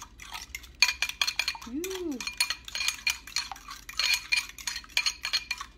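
Metal fork beating an egg in a ceramic bowl: quick, uneven clinks of the fork against the bowl's sides, several a second, with a light ring from the bowl.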